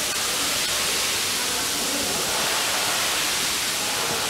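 Steady, even hiss of workshop background noise, with no distinct events.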